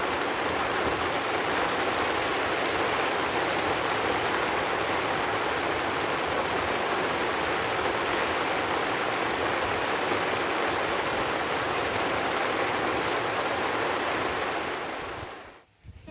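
Heavy rain falling, a steady dense hiss that fades out near the end.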